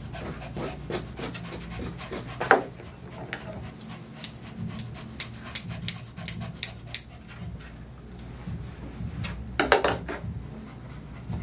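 Yorkshire terrier panting on the grooming table, with a quick run of small snips from grooming scissors trimming its tail hair around the middle. A low bass thump from a neighbouring building runs underneath.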